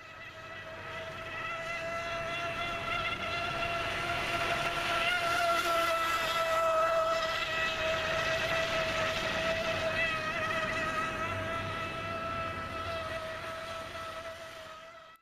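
Electric motor of a radio-controlled model outboard boat running at speed, a steady high whine with water noise. It swells louder toward the middle, eases off again, then cuts off suddenly.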